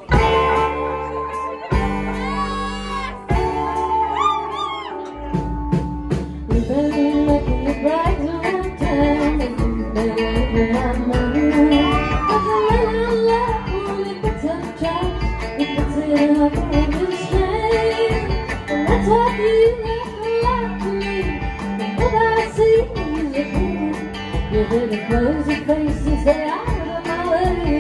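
Live country band of electric guitar, upright bass and drums, with a woman singing lead. The full band comes in with a steady beat about five seconds in.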